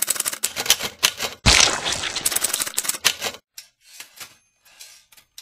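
Manual typewriter keys clacking in quick, irregular strokes. About a second and a half in comes a louder, longer burst of noise with a thump, still with key clicks in it. After that the taps grow fainter and sparser.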